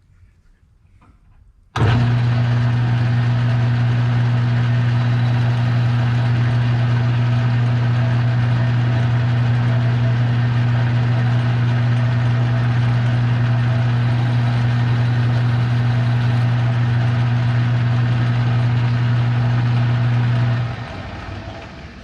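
Metal lathe switched on and running steadily with a loud low hum, then switched off and winding down near the end.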